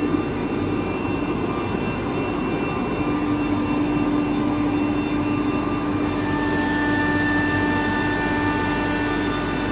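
Automatic-loading ATC CNC router running: a steady machine hum and rush of noise with several held tones. The main tone returns about three seconds in, and higher tones join about two-thirds of the way through.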